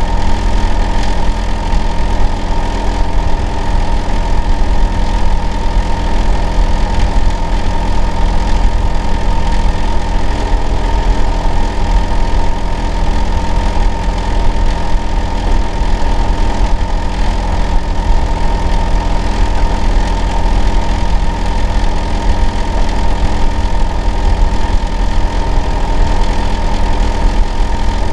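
Hitachi air-conditioner outdoor unit running with a loud, steady drone: a deep hum with a thin steady tone above it. The uploader complains of it as abnormal noise.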